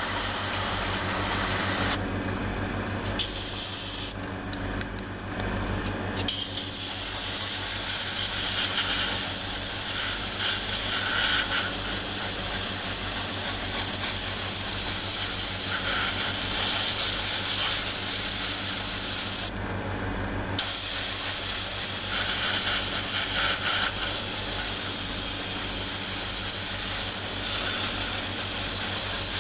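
Airbrush hissing as it sprays paint, in long bursts that break off briefly about 2 s, 4 to 6 s and 20 s in. Under it runs the steady, pulsing hum of the air compressor.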